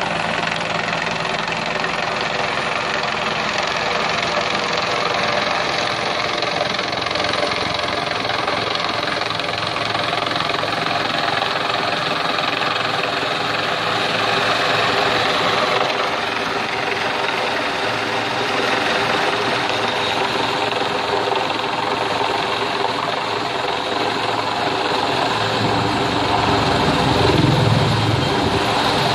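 Rescue helicopter's turbine engine and rotor running steadily close by, with a stronger low rumble near the end.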